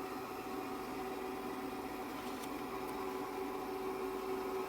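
Steady background hum with a faint hiss, holding two steady tones, with a couple of faint light ticks a little past the middle.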